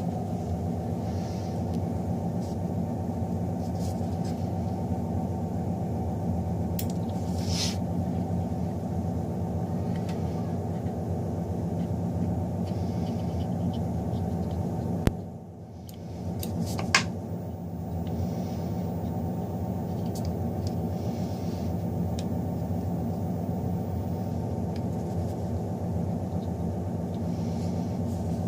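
Steady low mechanical hum. It cuts out for a couple of seconds about halfway, with a sharp click as it stops and another as it returns, and a few faint clicks elsewhere.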